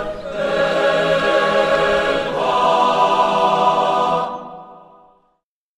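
Choir singing sustained chords, moving to a new chord about two seconds in, then fading out to silence near the end.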